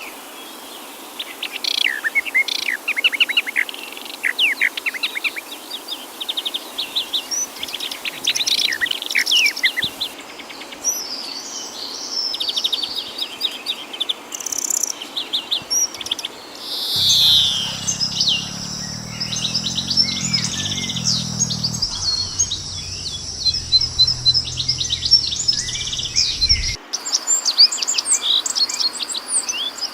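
Several wild songbirds chirping and singing in quick, high phrases. From about halfway through, a steady high insect trill runs beneath the birds, and a low hum comes and goes. The sound changes abruptly a few times, as separate recordings are spliced together.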